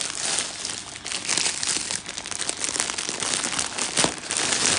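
Clear plastic wrapping crinkling and rustling as it is handled and pulled open, a dense run of small crackles with a sharper click about four seconds in.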